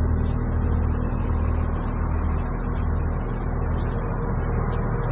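Caterpillar 535B skidder's diesel engine running steadily with a deep, even hum, sounding healthy: "running very good."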